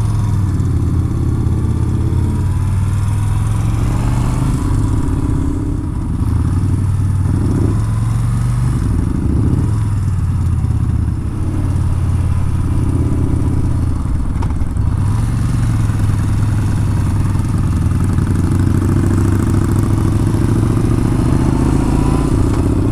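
Yamaha Bolt XV950R's air-cooled V-twin engine running while riding, the note easing off and picking up again a few times, around six and eleven seconds in.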